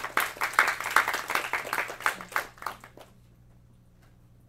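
Audience applauding, the clapping dying away about three seconds in.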